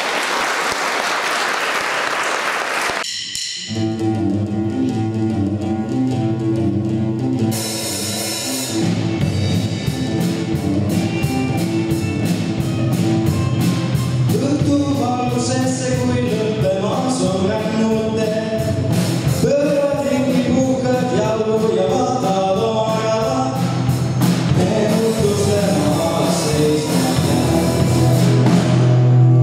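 Audience applause for the first few seconds, then a song starts: guitars and a drum kit play an intro, and a mixed choir of children and adults comes in singing about halfway through.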